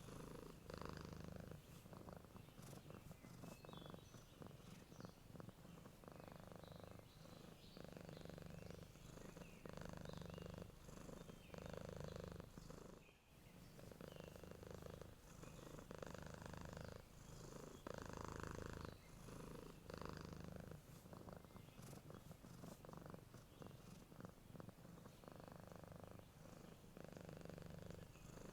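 Domestic cat purring steadily and softly, the purr swelling and easing with each breath about every two seconds.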